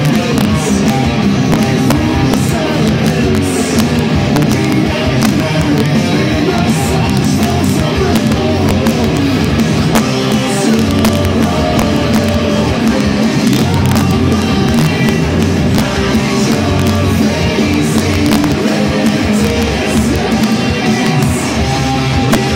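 Electric guitar played continuously in a heavy-metal style, with dense, fast riffing.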